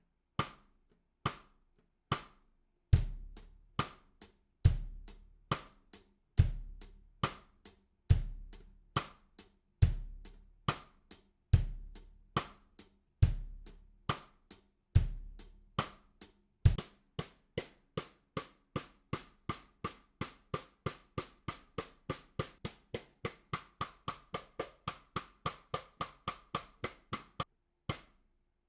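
Snare drum played cross stick (rim click) in a slow, even pulse, joined after about three seconds by a bass drum on alternate beats. Past the middle the bass drum drops out and the rim clicks come faster, nearly three a second, ending with one last click.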